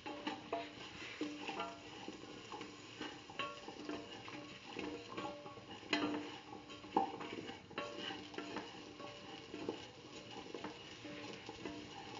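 A spatula stirring beetroot pieces, shallots and dried red chillies frying in oil in a steel pressure-cooker pan: sizzling, with frequent scrapes and clinks against the pan. Soft plucked background music plays underneath.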